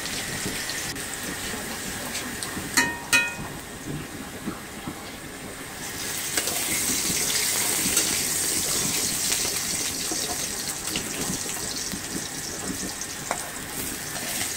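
Potato pieces frying in hot oil in a pan: a steady sizzling hiss that grows louder about six seconds in. Two sharp metal clinks ring out near three seconds in.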